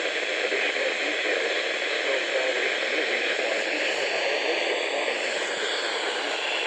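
Radio static: a steady hiss from a receiver with no clear signal coming through.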